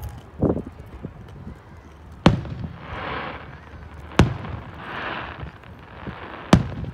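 Fireworks going off: a dull thump about half a second in, then three sharp bangs about two seconds apart, each followed by a short crackle.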